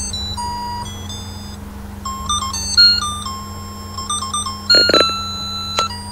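Christmas light set's controller box playing a tinny electronic melody in single beeping notes, over a steady low hum, with a brief knock about five seconds in.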